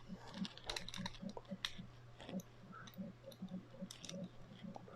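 Faint, quick clicking of the number wheels on a Master Lock Excell combination padlock being turned notch by notch, about four or five clicks a second, with a few sharper clicks among them. The shackle is held pulled down while each wheel is turned, to feel for the loose, wobbly number that gives away the combination.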